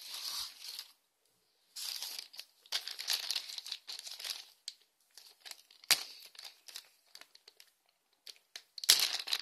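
Plastic wrapping crinkling in short, irregular bursts as small toy pieces are handled, with a sharp click about six seconds in.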